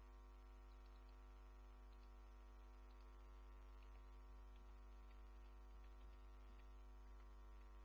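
Near silence: a faint, steady electrical hum in the recording, with a few faint ticks.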